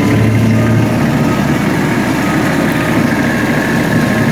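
Tractor engine running steadily while brush hogging a field with a rotary cutter at slow speed.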